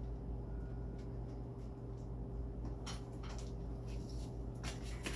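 Steady low machine hum, with a few soft rustles and clicks of plastic tubing being handled about three seconds in and near the end.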